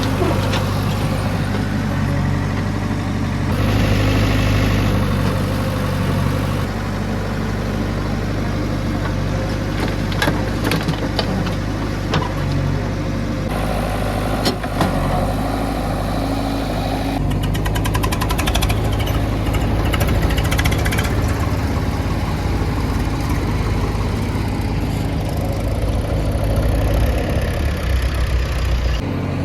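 Diesel engines of a backhoe loader and tractors running steadily, with scattered knocks and clatter. The engine sound shifts abruptly several times.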